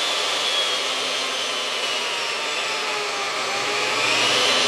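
Oliver job site table saw running with its blade spinning over a steady rush of air, its motor whine sliding down in pitch as the variable-speed dial is turned down, then climbing again near the end as the speed comes back up.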